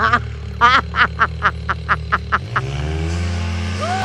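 Side-by-side UTV engine running at a steady note, rising in pitch about two and a half seconds in as it revs up. Over the first half, a quick string of about nine short laugh-like bursts fades away.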